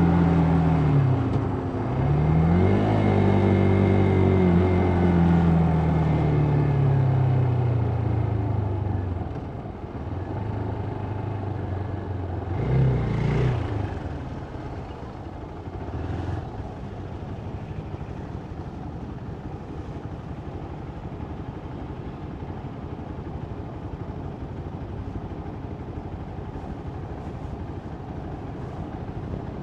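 Motorcycle engine slowing down, its pitch falling over several seconds, with a short rev about two seconds in and another brief rev around thirteen seconds in. After that the engine drops out and a steady rushing wind and road noise carries on.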